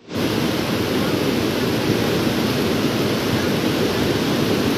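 Floodwater rushing: a steady, even noise of fast-flowing water.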